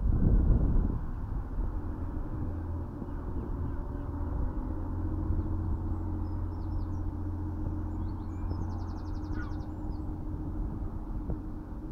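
A steady low rumble of outdoor background noise, with a brief louder burst in the first second. Faint small-bird chirps come in the second half, including a short rapid trill about nine seconds in.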